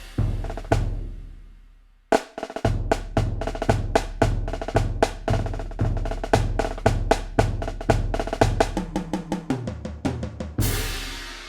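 Yamaha DTX720K electronic drum kit sounds from its DTX700-series module. Two crash-and-kick hits ring out, then a steady groove of kick about every 0.6 s with snare and other hits begins. A tom fill steps down in pitch and ends on a crash with kick that rings out near the end.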